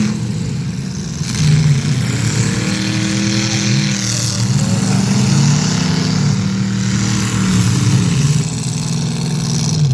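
Demolition derby cars' engines running, a steady loud rumble, with a slow rise and fall in pitch between about two and five seconds in.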